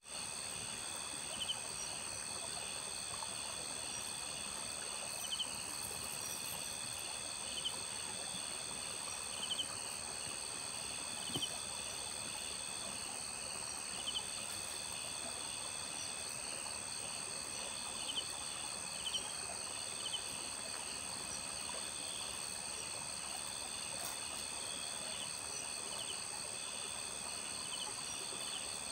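Night-time insect chorus: crickets trilling steadily at several high pitches, with a pulsed chirping call repeating roughly every two seconds and an occasional faint click.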